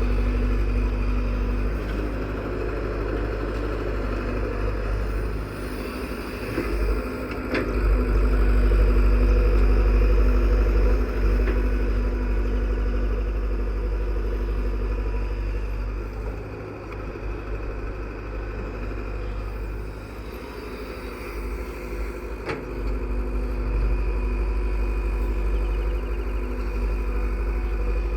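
Heavy diesel machinery running with a steady low rumble that swells louder for a few seconds about a third of the way in, with a couple of brief sharp knocks.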